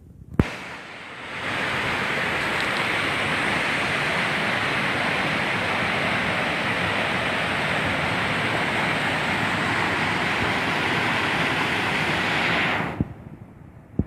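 Waterfall's falling water rushing loud and steady, a dense even hiss. About a second in it swells up, and near the end it drops off suddenly to a much quieter rush of water.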